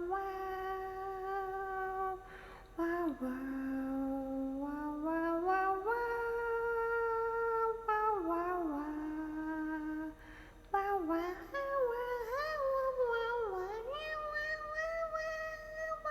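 A young woman's voice making long, wordless, sung-out cries while drinking: drawn-out notes that step up and down and slide between pitches, with short breaks between them and a wavering stretch in the second half.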